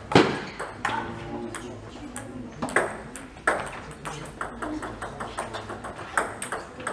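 Table tennis ball clicking off paddles and the table in a rally, with a sharp hit just after the start, then a run of lighter, quicker clicks.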